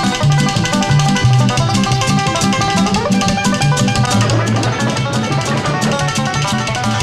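Lively background music of plucked strings over a bouncing bass line, with a steady beat.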